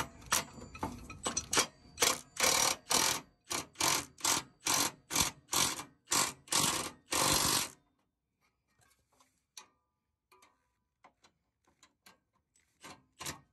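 Milwaukee cordless power tool run in about a dozen short trigger bursts on a bolt by the exhaust, stopping after about eight seconds. Faint clicks follow, with two more brief bursts near the end.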